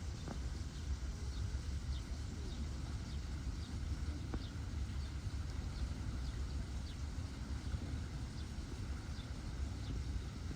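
Outdoor ambience: a steady low rumble with faint, short high chirps repeating about twice a second.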